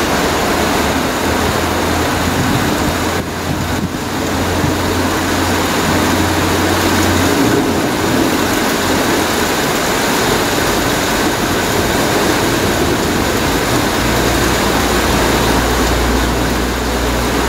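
Class 155 diesel multiple unit's underfloor diesel engines running as the train moves slowly along the platform: a steady low drone over a constant hiss. The drone drops to a deeper pitch about two-thirds of the way through.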